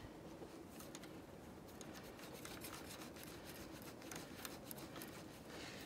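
Faint small clicks and rubbing as gloved hands thread a nut onto the hitch bolt joining a snowmobile and a tow-behind groomer, done up finger tight.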